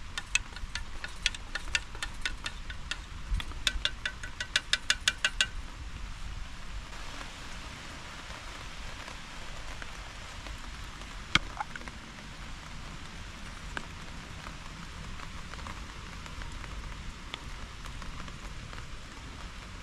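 Rain pattering steadily on a tarp. For the first five seconds or so a run of quick metallic clinks sounds over it, a spoon stirring in a metal pot, getting faster just before it stops. One sharp click comes about 11 seconds in.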